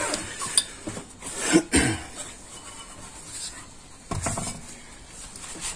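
A steel car wheel being lifted and fitted onto the front hub, its metal rim clanking and scraping against the hub and brake disc. The loudest clank comes about a second and a half in, another just after four seconds.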